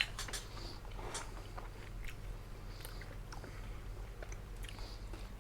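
A person chewing food, with soft, scattered mouth clicks and smacks over a steady low hum.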